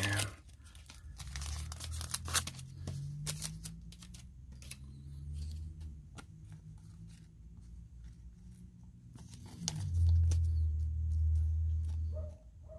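Foil wrapper of a trading-card pack crinkling and tearing, with cards being handled, in a series of short crackles. Underneath runs a low rumble that grows loud about ten seconds in and drops off shortly before the end.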